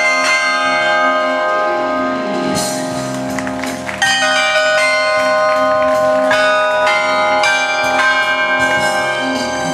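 A rack of tuned bells played as a melody, each struck note ringing on and overlapping the next, with a loud fresh strike about four seconds in.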